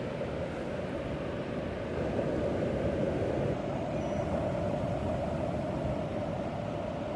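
Ocean waves washing in a steady, continuous rush, swelling a little about two seconds in.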